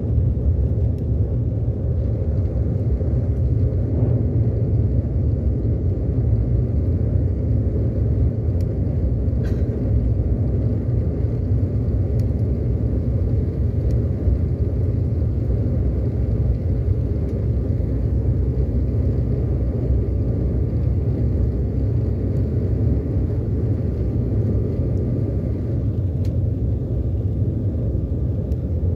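Jet airliner on its takeoff roll, heard inside the cabin: the engines at takeoff power and the runway give a steady, loud low rumble, with a faint steady whine above it through the middle.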